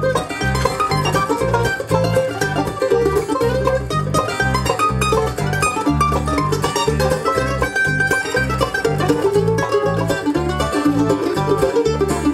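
A bluegrass band of mandolin, banjo, guitar and bass playing live, the mandolin picked quickly over a steady bass beat.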